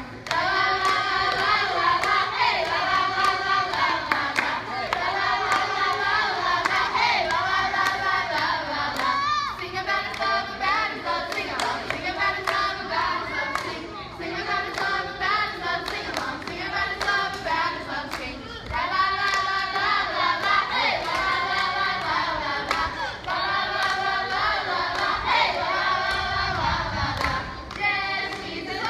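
A group of voices, children among them, singing together with hand clapping.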